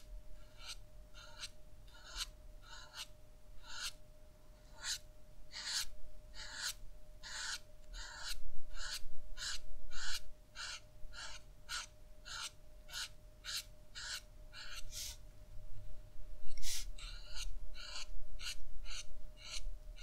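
Felt brush-tip alcohol marker (Winsor & Newton Brushmarker) flicked across paper in short, quick strokes, about two a second, with a brief pause near the end. A faint steady hum sits underneath.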